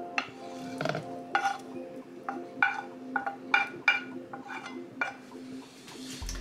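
A cooking utensil clinking and scraping against a pan, a dozen or so sharp knocks, as cooked vegetables are added to a simmering curry and stirred in. Soft background music with held notes runs underneath.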